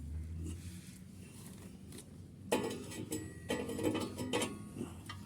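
Several sharp metallic clanks with a brief ring, starting about halfway through: a steel motorcycle exhaust pipe and its fittings knocking together as the pipe is fitted onto the bike.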